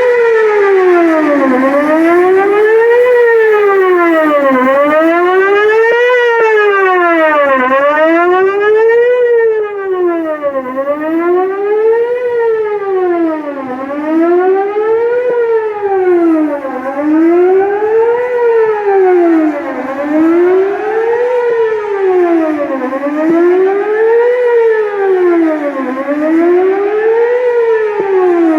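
Whelen WPS-4008 electronic outdoor warning siren sounding a wail during its scheduled test. The pitch sweeps up and down over and over, about once every three seconds, loud and steady.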